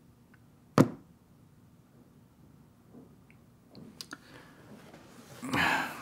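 A smartphone knocks once, sharply, on a wooden tabletop about a second in, followed by a couple of faint clicks. Near the end comes a louder, breathy rustling noise.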